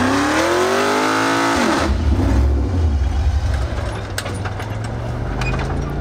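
Rock bouncer buggy's engine revving hard under load on a steep dirt climb, pitch rising, then dropping off about two seconds in to a lower, quieter running. A few sharp knocks follow near the end.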